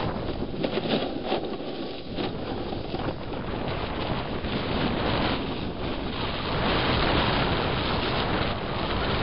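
Strong gusty wind buffeting the camera's microphone: a loud rushing noise that rises and falls.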